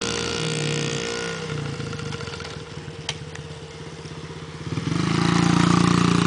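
Yamaha PW50 minibike's small two-stroke single-cylinder engine running at low throttle with an uneven putter, then rising sharply in level about five seconds in as the throttle opens.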